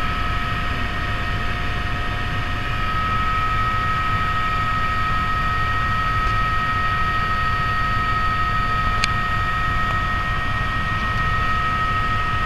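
Helicopter in flight heard from on board: a steady low rotor and engine rumble with a constant high whine over it.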